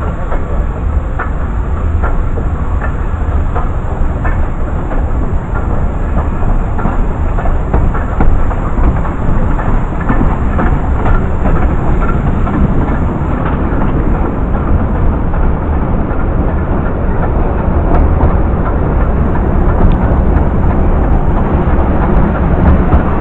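Narrow-gauge railway carriage running along the track: a loud, steady rumble with frequent clicks of the wheels over the rails.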